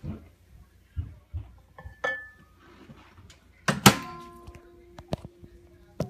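Knocks and thuds of objects being handled, with one loud clank about four seconds in that rings on for over a second.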